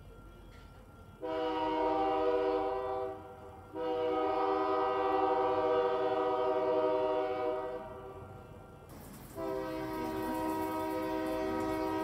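Diesel locomotive air horn sounding three blasts: a short one about a second in, a long one of about four seconds, and a third starting near the end. A faint low rumble from the train lies beneath.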